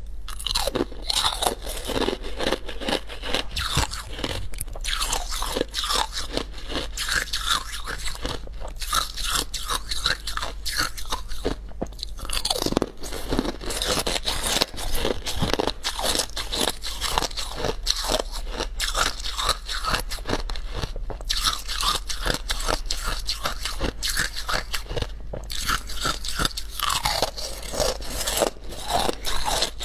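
Hard moulded ice pieces being bitten and chewed close to a clip-on microphone: a dense, continuous stream of crisp crunches and cracks.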